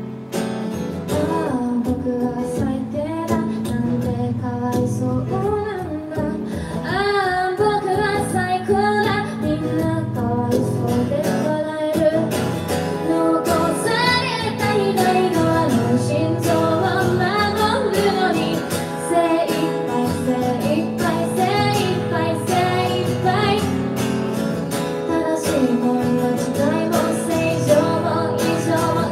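A woman singing in Japanese over her own strummed acoustic guitar, amplified live; the voice comes in about a second in.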